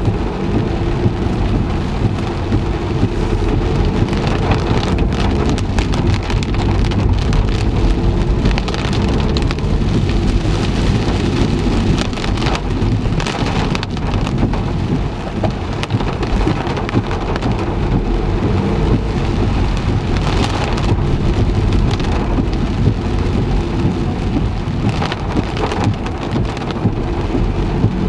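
Heavy rain falling on a car's roof and windscreen, heard from inside the car as a steady, dense hiss over a low rumble, with a few louder spatters.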